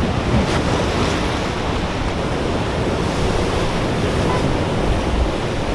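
Ocean surf breaking on a rocky shore, with wind buffeting the microphone: a steady, even rush of noise, heaviest in the deep end.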